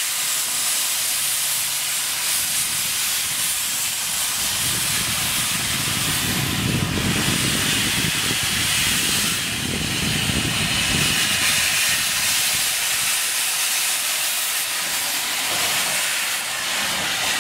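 Steady steam hiss from the open cylinder drain cocks of the John Molson, a 2-2-2 steam locomotive built in 1971 as a replica of an 1848 engine, as it moves slowly forward. A lower rumble swells up in the middle.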